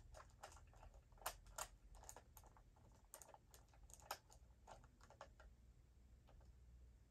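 Faint, irregular clicks and taps of small hard objects being handled, in keeping with AAA batteries and a plastic battery compartment being worked by hand. Two sharper clicks stand out, one a little over a second in and one about four seconds in.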